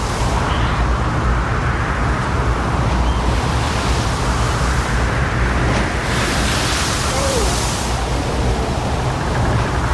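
Strong wind blowing hard across the microphone: a loud, steady rushing with low rumbling buffets.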